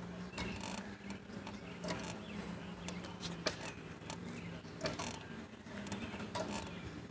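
Metal swing-set chains clinking and jangling as a child swings back and forth, with a short clink about every one and a half seconds.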